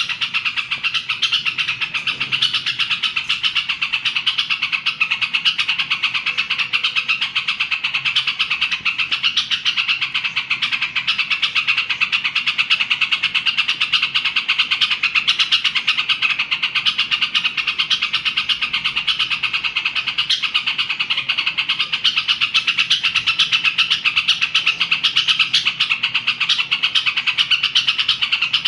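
Caged yellow-vented bulbul (trucukan) singing nonstop in a rapid run of chattering, warbling notes, the full 'nembak' song style.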